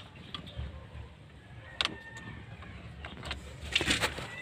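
Handling noise around a car's ignition switch wiring: a low rumble from the phone being moved, with a sharp click about two seconds in and a short run of clicks and knocks near the end as the wires and plastic column trim are handled.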